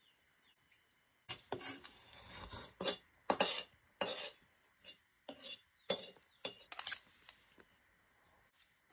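Metal utensil scraping and clinking against a cooking pan in a run of quick strokes, starting about a second in and stopping a couple of seconds before the end.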